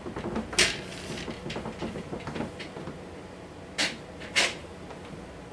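A canvas and a pour-painting turntable being lifted and shifted on a tabletop: a loud clattering knock about half a second in, scattered light taps, and two sharp knocks close together about four seconds in.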